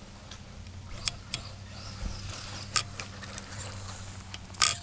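WLtoys L303 RC buggy with a brushed electric motor driving across wet grass, heard as a steady low hum, with several sharp clicks, the loudest near the end.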